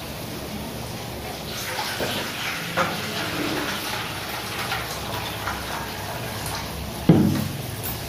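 Water poured from a plastic jug into a steel bowl, a steady splashing pour, followed by a single sharp knock about seven seconds in.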